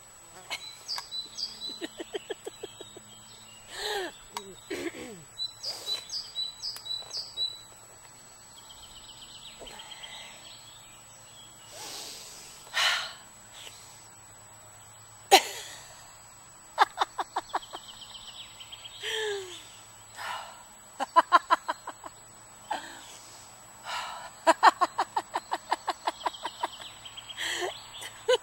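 A woman laughing in repeated runs of quick 'ha-ha-ha' pulses, with breaths and gasps between the runs; deliberate laughter-yoga laughter. Birds chirp in the background.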